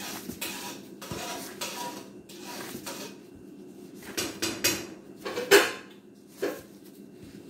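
Brown-flour dough being kneaded by hand in plastic gloves on a countertop: a run of pressing, rubbing and squashing noises, with a few louder knocks between about four and six and a half seconds in.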